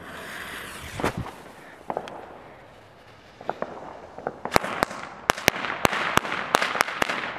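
A Weco Knallfrosch (folded jumping-jack firecracker) is lit: its fuse hisses briefly. About three and a half seconds in, it goes off in a rapid string of about ten sharp bangs over crackling sparks, lasting some three seconds.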